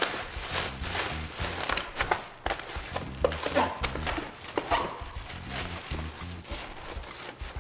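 Plastic bag crinkling and rustling in short bursts as it is crumpled and pushed down into a cardboard box, over soft background music.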